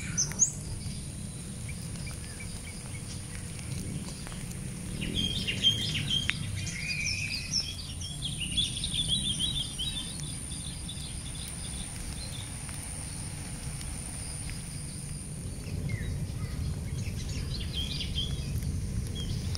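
Birds chirping, with a cluster of calls a few seconds in and more near the end, over a thin steady high tone and a low steady rumble.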